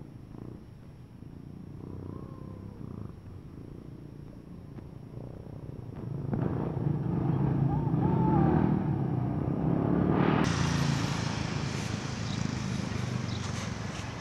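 Small motor scooter passing close, its low engine hum swelling to a peak about eight seconds in and then fading. From about ten seconds in a broad rushing noise takes over.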